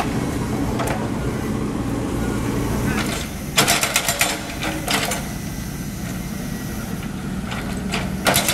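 Mini excavator's diesel engine running steadily, with a quick run of metallic clanks and rattles about three and a half seconds in, one more a second later, and another run near the end.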